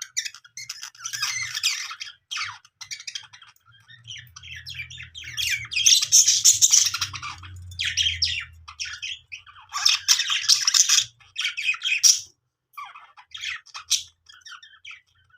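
Budgies chirping and chattering in rapid bouts of high warbling calls, with brief pauses between bouts and the loudest stretches about six and ten seconds in.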